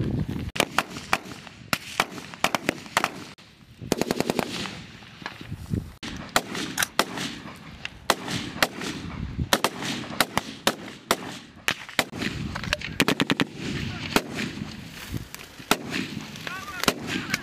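Small-arms rifle fire: many sharp single shots, with several quick bursts of rapid fire about 4, 9 and 13 seconds in.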